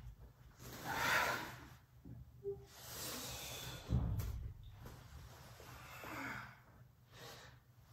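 A person breathing deeply and audibly in and out, about four long breaths, during a slow breathing exercise, with a dull thump just before the middle.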